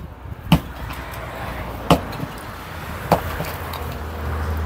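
A sledgehammer striking concrete masonry three times, sharp knocks about a second and a half apart. A low rumble underneath grows louder near the end.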